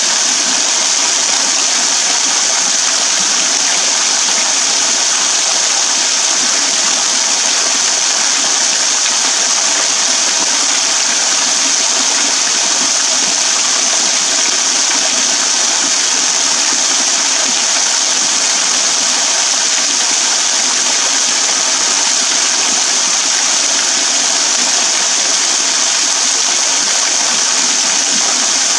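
Small waterfall spilling as thin streams off an overhanging rock ledge, splashing into a shallow puddle and onto the ground below. A steady, even splashing hiss with no change.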